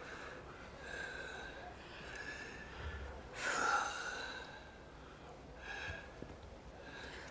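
A person's heavy breathing: a string of audible breaths about a second or so apart, the loudest a sharp breath about three and a half seconds in.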